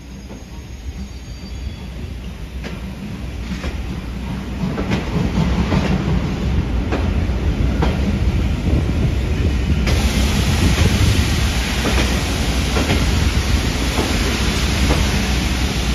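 Railway carriages rolling past as a steam-hauled train pulls away: a low rumble of wheels on the rails with irregular clicks over the rail joints, growing louder over the first six seconds or so and then holding steady.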